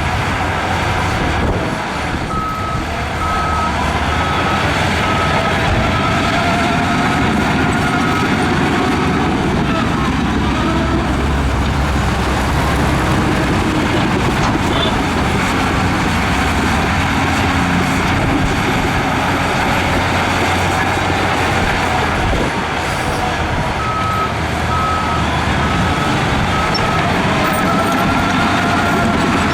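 Heavy earthmoving machinery running loud and steady, a Shantui bulldozer working alongside a dump truck, with a reversing alarm beeping about twice a second for a few seconds, then again near the end.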